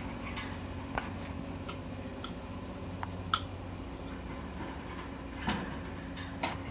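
Pet budgies pecking and moving about their cage: scattered light clicks and taps at irregular intervals, one sharper than the rest about a third of the way in, over a steady low hum.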